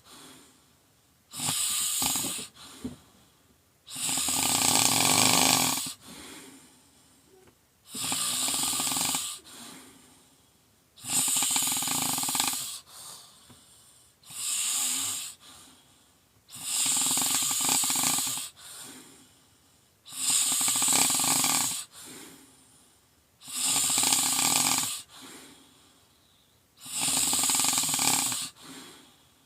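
A person snoring loudly in a steady rhythm: about nine long, rasping snores, one every three to four seconds, each followed by a quieter breath.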